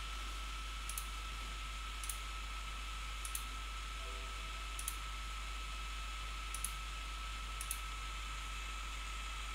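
Computer mouse clicking now and then, about six single clicks at uneven intervals, over a steady hiss with a faint constant tone.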